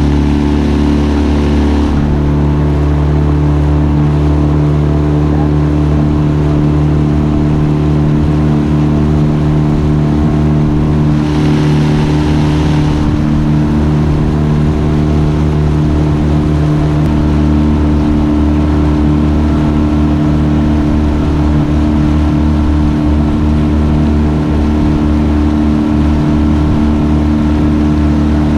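Honda 8 hp twin-cylinder four-stroke outboard running steadily at a constant speed, pushing a loaded aluminum boat, over a hiss of rushing water. A short burst of louder hiss comes about eleven seconds in.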